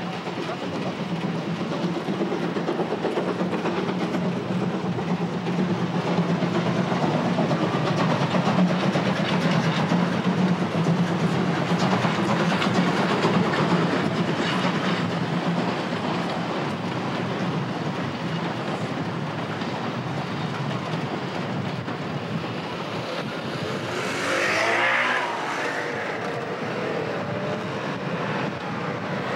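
Narrow-gauge passenger train running past, a steady rumble of coaches on the rails that eases off after the middle. Near the end a car passes with a brief rising-then-falling engine note.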